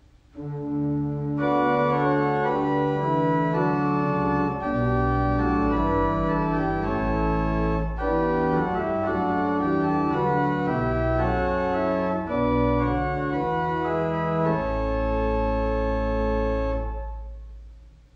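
Church organ playing slow, held chords over a bass line that steps from note to note. It comes in just after the start and dies away near the end.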